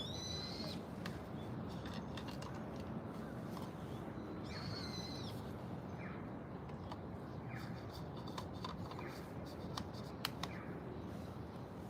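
Birds calling: two drawn-out high calls, one at the start and one about four seconds in, then several short falling chirps, over a steady low background rumble.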